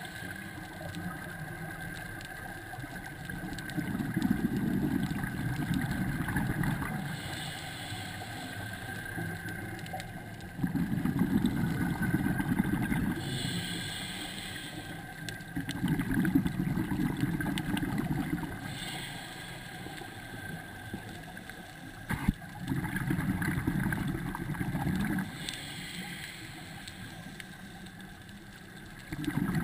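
Scuba breathing through a regulator, heard underwater: a long burst of bubbling exhaust roughly every six seconds, with a softer hiss of inhalation between the bursts.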